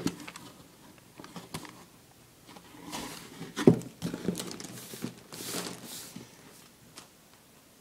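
Handling noises: scattered knocks, taps and rustles as a cardboard Lego set box and its bagged pieces are moved around. The loudest knock comes about three and a half seconds in, and it goes quiet near the end.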